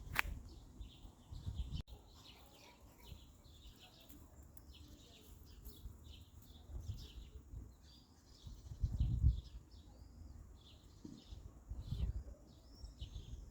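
Small birds chirping in many quick, short notes, with a couple of low rumbles about nine and twelve seconds in.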